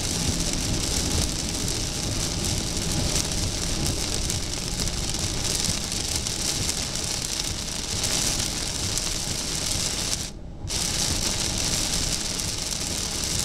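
Heavy rain hitting a car's roof and windshield at highway speed, mixed with tyre noise on the wet road, heard from inside the cabin. The rain noise drops away for a moment about ten seconds in.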